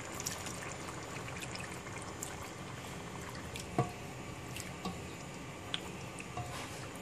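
Thin coconut milk being spooned and poured into simmering chicken red curry in a pan, then stirred with a spatula, a steady wet liquid sound with a few light knocks of the spoon against the pan, the loudest about four seconds in.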